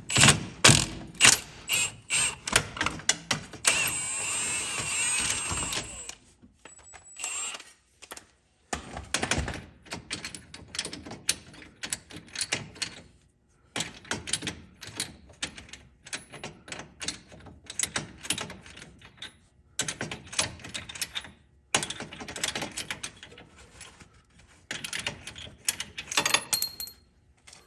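Long series of short metallic clicks and knocks from wrenching out a stripped engine mount bolt that has had a nut welded onto it, with a power tool running steadily for about two seconds near the start.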